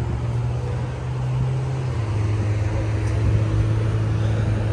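Steady drone of road traffic from cars passing on a highway, with a low hum running under it.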